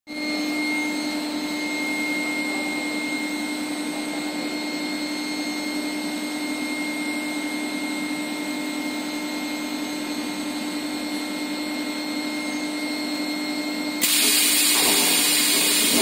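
Steel pipe induction annealing line running: a steady machine hum with a high, even whine. About two seconds before the end, a much louder hiss comes in abruptly.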